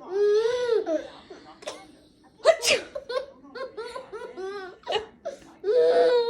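A one-year-old baby laughing, in long held laughs and runs of short giggles. A sharp sneeze about two and a half seconds in sets off a fresh burst of laughter.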